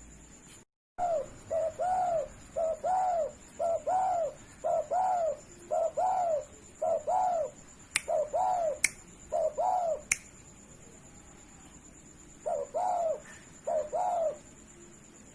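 Spotted dove (derkuku) cooing: a long run of short, arched coos, a pause, then a shorter phrase near the end. A few sharp clicks fall among the coos.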